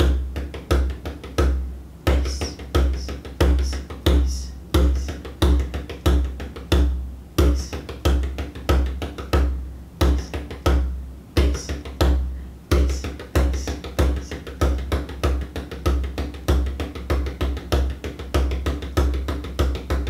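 Bodhrán played with a tipper in a steady reel groove: deep, bassy strikes accented about every two-thirds of a second with lighter strokes between, the left hand pressed against the inside of the skin to shape the tone.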